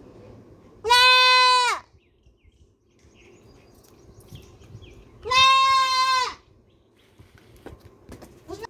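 Baby goat bleating twice: two loud, drawn-out calls of about a second each, roughly four seconds apart, each holding a steady pitch and dropping at the end.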